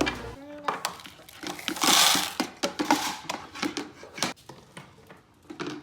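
Plastic toys and small pieces being handled: irregular clicks, knocks and rattles, with a short rustling burst about two seconds in.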